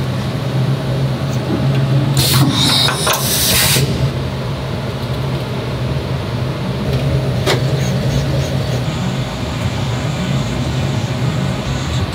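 CNC milling machine running with a steady low hum. About two seconds in, a hiss of air lasts about a second and a half, as from the spindle's air blast when a tool holder is released and loaded by hand. A single sharp click comes near the middle.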